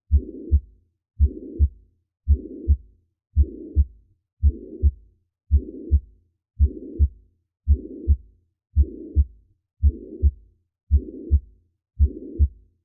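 Heart heard through a stethoscope with a holosystolic murmur: each beat is a low first sound and a second sound, with a blowing murmur filling the whole stretch between them. The beats come steadily at about one a second.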